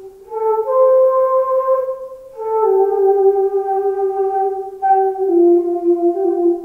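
Solo transverse flute (yokobue) playing a slow, calm melody of long held notes that slide from one pitch to the next, rising to a high note about a second in and then stepping gradually lower.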